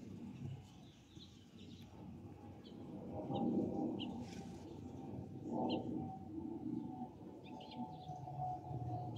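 Distant Airbus A320 airliner on approach: a low rumble with a thin steady whistle that grows stronger through the second half. The whistle is the cavity tone of the wing's fuel over-pressure protector (FOPP) vents, typical of A320s on approach. Birds chirp briefly several times over it.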